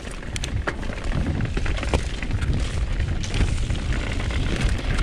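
Wind buffeting a mountain bike rider's camera microphone on a fast descent, a heavy low rumble, with scattered clicks and knocks of the bike rattling over rough trail.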